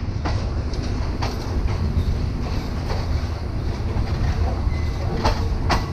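Passenger train carriage rolling along the track, a steady low rumble broken by irregular sharp clacks of the wheels over rail joints, two of them close together near the end.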